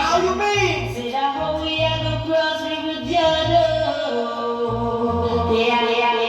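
Reggae song playing: sung voices hold long notes over a pulsing bass line.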